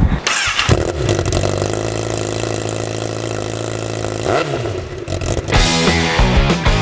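Honda CBR1000RR's inline-four engine revved up and held at a steady raised rev at the exhaust. About four and a half seconds in the revs dip and rise again briefly. Rock music with guitar comes in near the end.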